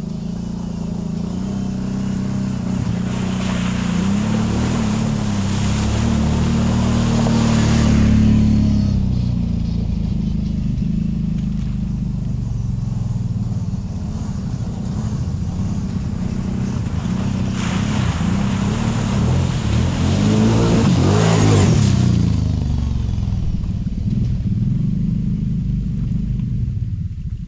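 Kawasaki Brute Force 750 ATV's V-twin engine running along a trail. Its pitch and loudness swell twice as the throttle opens, a few seconds in and again about two-thirds of the way through.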